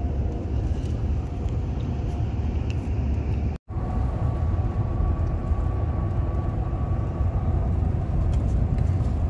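Steady low rumble of road and engine noise inside a moving car's cabin. The sound cuts out completely for an instant about a third of the way in.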